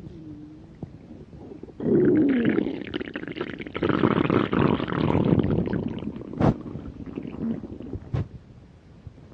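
Stomach growling: after a faint low squeal, a loud gurgling rumble starts about two seconds in and churns on for about four seconds, followed by two short pops as it fades away.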